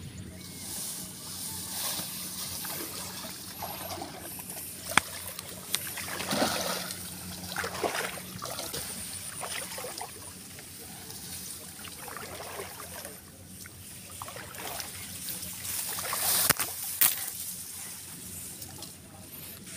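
A person wading through shallow muddy water among tall grass: water sloshing and trickling, grass stalks brushing and rustling, with a few sharp clicks or knocks about five seconds in and twice near the end.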